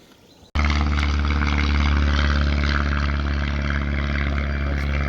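A loud, steady engine drone with a deep, even hum that holds one pitch throughout. It cuts in abruptly about half a second in.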